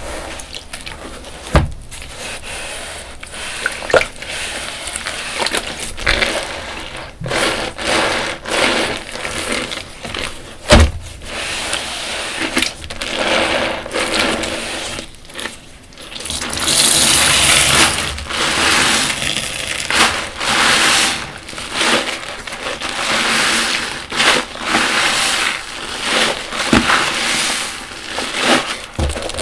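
Hands squeezing and pressing two soaked cellulose car-wash sponges in a tub of soapy water: wet squelching and fizzing foam, about one squeeze a second, with a longer loud stretch past the middle. A few sharp knocks in the first half.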